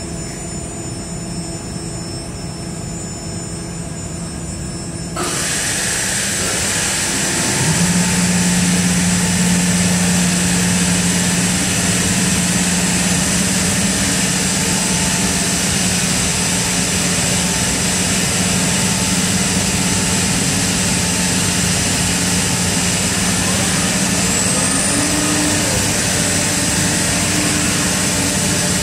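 C.R. Onsrud Panel Pro CNC router starting up: a lower machine hum with steady tones, then about five seconds in a loud even rushing noise switches on, and a couple of seconds later a low steady hum slides up in pitch and holds as the machine comes up to running speed.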